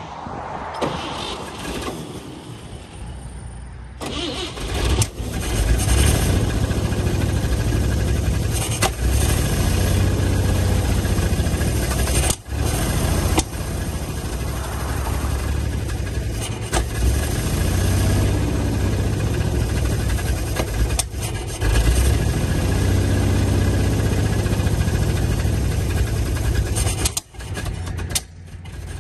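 1953 GMC one-ton truck's inline-six engine being cranked and catching about four seconds in, then running steadily with a couple of brief drops in level.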